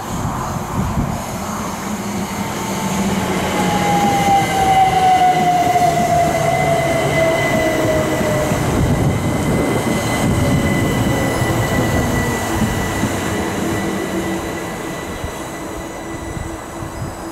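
Southeastern Class 375 Electrostar electric multiple unit passing through at speed: rumbling wheel and track noise swells as it goes by, then fades as it draws away. A whine slides down in pitch while it passes, over a steady high whine.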